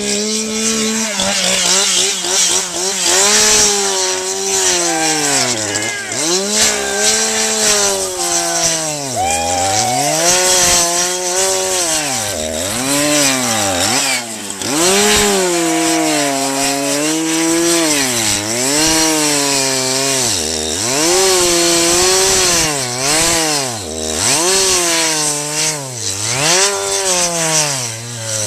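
Two-stroke chainsaw engine running hard, its pitch surging up and sagging down again and again, about once every second or two, without holding steady.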